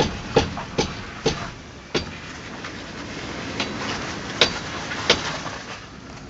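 Jeep Grand Cherokee front end popping: sharp pops about every half second for the first two seconds, then three more, spaced out, over a steady background noise.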